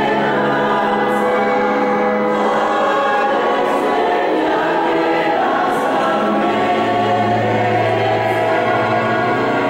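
Church choir singing a hymn in long held notes. A deeper low note comes in about two-thirds of the way through and holds for about two seconds.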